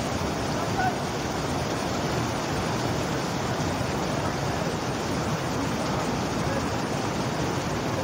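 Mountain stream rushing over rocks: a steady, even rush of fast-flowing water.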